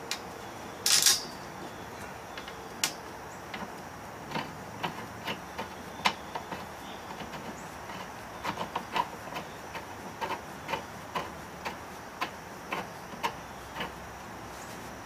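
Light, irregular clicks and clinks as a flexible exhaust pipe's threaded end is screwed by hand onto the nipple on a Honda EU2200i generator's muffler, with one louder scrape about a second in. The generator is not running.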